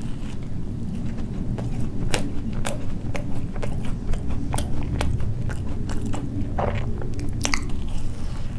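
Close-miked biting and chewing of a glazed Krispy Kreme doughnut: soft crunches and frequent sharp mouth clicks, over a steady low background rumble.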